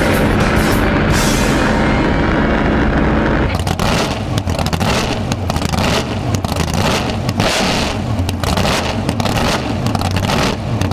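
A race boat's engine runs flat out, heard from an onboard camera with a rush of wind and water. About three and a half seconds in it gives way to music with a strong, steady beat.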